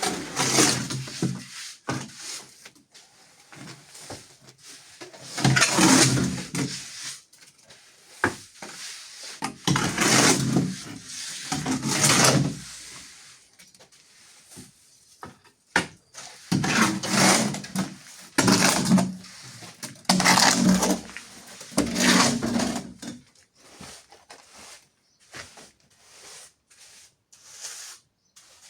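A hand tool scraping and spreading wet cement mortar across a floor in long strokes, about eight of them, bunched more closely together in the middle and fading out toward the end.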